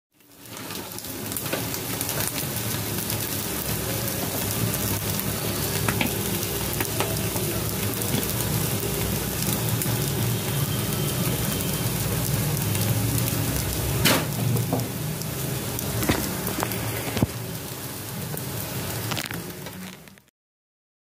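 Egg-coated bread toast sizzling in hot oil in a frying pan, with a few sharp clicks against the pan, the loudest about fourteen seconds in. The sizzling fades out shortly before the end.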